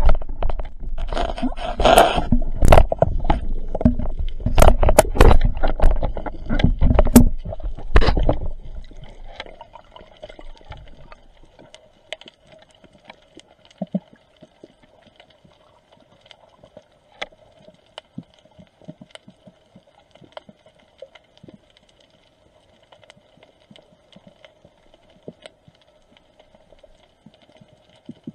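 Underwater camera audio: loud rushing water with knocks and clicks for the first eight seconds or so while the view is moving fast, then a quiet underwater hush with scattered faint clicks and a faint steady hum.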